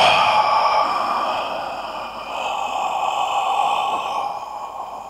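A man's long, breathy sigh, one continuous exhale of about five seconds that fades toward the end.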